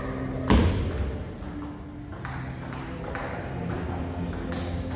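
Table tennis rally: the ball clicks sharply off the bats and the table, about every half second. There is one loud knock about half a second in.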